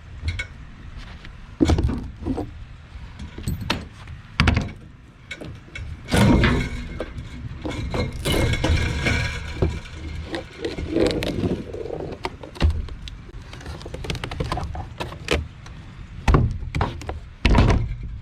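Irregular knocks, thuds and clanks from hand work on boat fittings, with a longer stretch of scraping and rattling in the middle.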